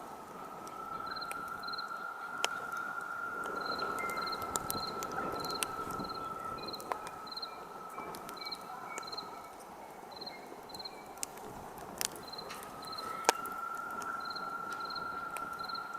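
Campfire crackling, with scattered sharp pops; the loudest two come near the end. Crickets chirp in short pairs throughout, and a steady high whistle runs for much of the time, breaking off for a few seconds past the middle.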